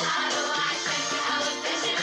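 Music: a song with dense instrumental backing.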